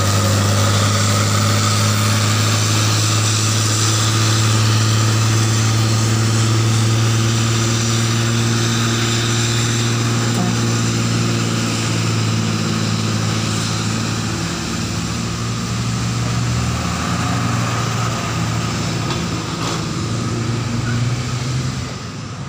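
Diesel engine of a heavily loaded semi-trailer truck labouring slowly up a steep climb, a loud, steady low drone under full load. It slowly fades from about halfway as the truck pulls away.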